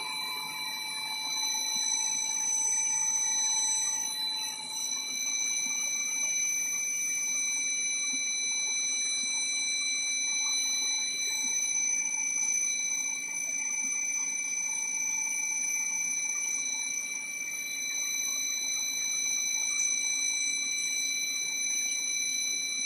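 Vertical engine head surface grinding machine running steadily while it grinds an engine cylinder head: a steady high-pitched whine with overtones over a continuous hiss.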